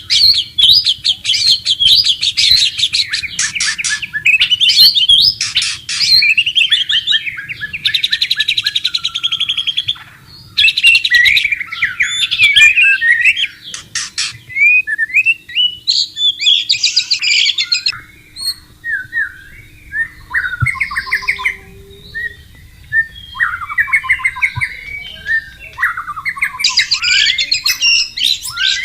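White-rumped shama singing: a long run of loud, varied phrases of rapid trills and whistled notes, broken by short pauses.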